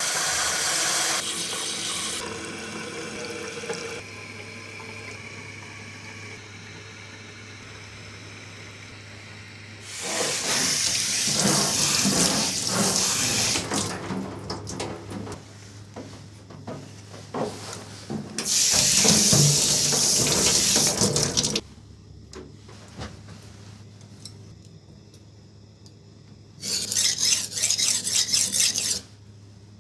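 Water spraying from a hose nozzle into a plastic sink basin in several hissing bursts, rinsing whetstone slurry, over a steady low hum. Near the end comes a run of quick, regular scraping strokes as a knife is worked on a wet whetstone.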